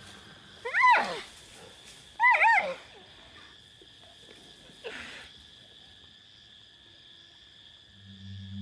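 Plains zebras calling in alarm: a sharp call about a second in, two overlapping calls a little after two seconds, and a fainter one around five seconds, each rising and then falling in pitch. Low background music comes in near the end.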